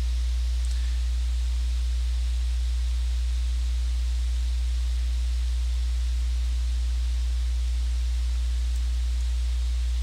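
Steady low electrical hum with an even hiss over it, unchanging throughout: the recording's background noise.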